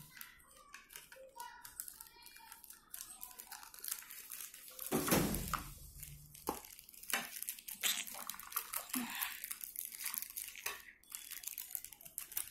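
Thin clear plastic bag crinkling and rustling in short irregular bursts as the sunglasses are pulled out of it and the bag is handled, loudest about five seconds in.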